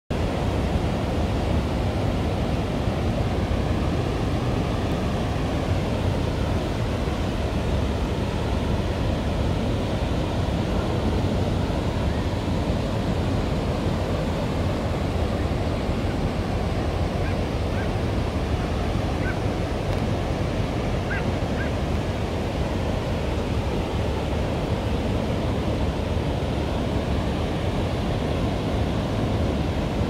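Ocean surf breaking and washing up a sandy beach: a steady, continuous rush of waves.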